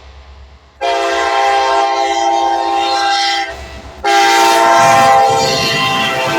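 Kansas City Southern freight locomotive's multi-chime air horn sounding two long blasts as a salute, the first starting about a second in and the second after a short break. A low rumble of the passing train runs under the second blast.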